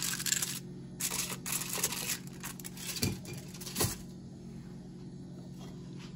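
Aluminium foil chocolate-bar wrapper crinkling in several bursts as it is folded over by hand, with two dull knocks near the end of the crinkling. A steady low hum runs underneath.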